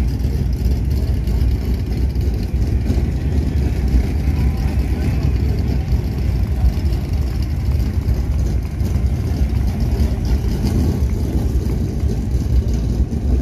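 Steady low rumble of vehicle engines running as cars move slowly past.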